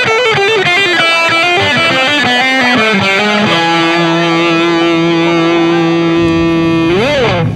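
Distorted electric guitar playing a quick run of single notes that steps mostly downward. It then holds one long note from about halfway, which bends up and back down just before it cuts off near the end.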